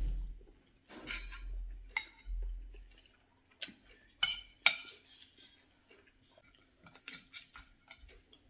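Close-up eating sounds: chewing in the first few seconds, then a metal spoon clinking sharply on a ceramic plate three times about halfway through, and lighter clicks of a fork and spoon in the bowl of mussels near the end.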